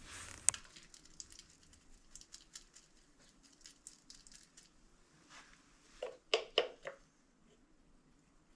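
Faint clicks and soft handling noises as silicone caulk is worked in under a toilet flange. A short cluster of louder clicks comes a little after six seconds.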